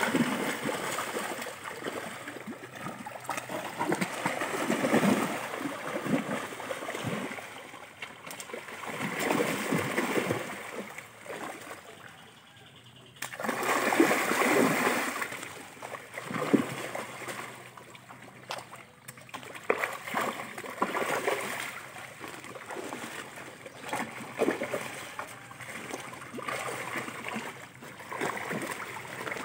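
Large fish thrashing and splashing at the surface of a river as they snap at floating bait. The splashes come in uneven surges, with a brief lull about twelve seconds in and a sudden loud surge just after.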